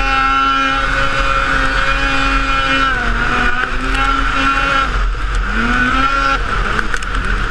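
Ski-Doo Rev 600 snowmobile's two-stroke engine running at high revs while riding, the revs dipping and climbing back about three seconds in and again near six seconds.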